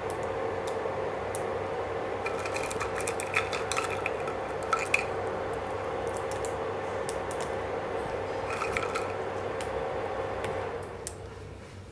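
Fried bread pieces being dropped into a kadai of cooking vegetables, with light clinks of utensils against the metal pan in two clusters, a few seconds in and again around nine seconds. A steady hum runs underneath and fades out near the end.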